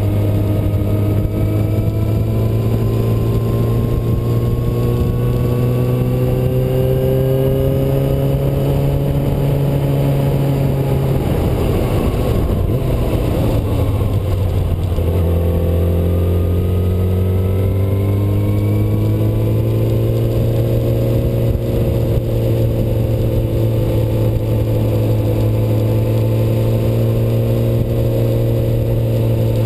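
Yamaha R6 sportbike's inline-four engine running at cruising speed, its pitch rising and falling slowly with the throttle. Near the middle the revs dip briefly, then settle steady again.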